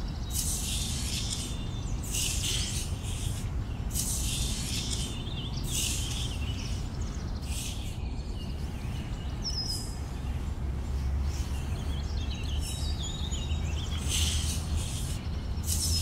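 Small steel pointing trowel scraping and smoothing wet concrete in repeated strokes, each a short gritty hiss, about one every one to two seconds. A bird chirps once about halfway through, over a low steady hum that strengthens in the second half.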